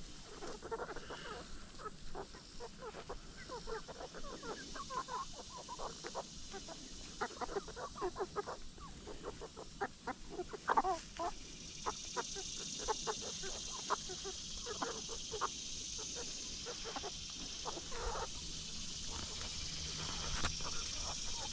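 A flock of chickens clucking and muttering in quick, overlapping short calls while they scratch and feed. From about halfway through, a steady high hiss runs underneath.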